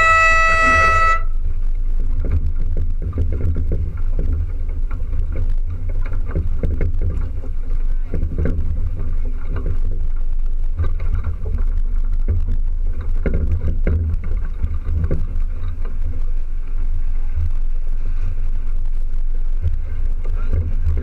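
A horn blast, one steady high note, cutting off about a second in: a signal in a sailboat race's start sequence. After it, steady wind rumble on the microphone and water washing along the hull of the small sailboat.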